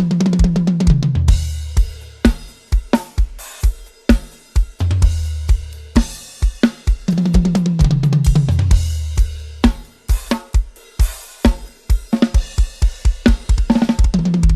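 A budget drum kit being played: a groove of strokes with cymbals over it, broken by a run of tom strokes falling in pitch right at the start and another about halfway through.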